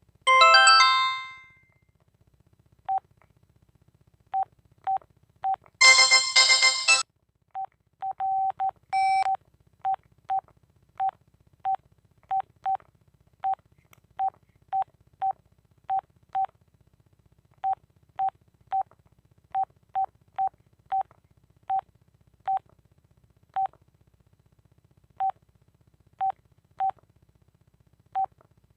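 Telit mobile phone's keypad beeps as buttons are pressed: short beeps at one pitch, at an uneven pace of about one or two a second. A decaying chime sounds at the very start, and a brief, louder burst of tones comes about six seconds in.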